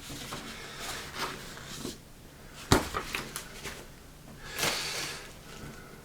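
Paper booklets and cardboard game components being handled: light rustling and knocks, with one sharp tap a little under three seconds in and a brushing swish near five seconds.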